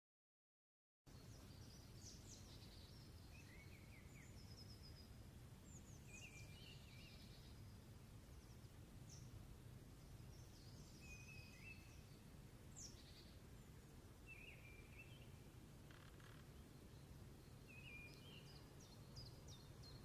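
Faint outdoor field sound: a low steady rumble with short, high chirps and twitters of small songbirds scattered throughout. It starts suddenly about a second in.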